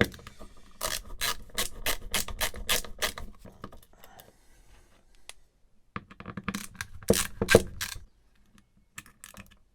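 Quick runs of sharp small clicks and scrapes from hand tools working on a hard disk drive's metal case during disassembly: an even run of about five clicks a second, a pause, then a second cluster a few seconds later.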